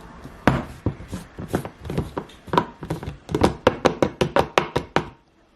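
Knife chopping on a cutting board: a run of sharp strikes that quickens to about five a second, then stops just before the end.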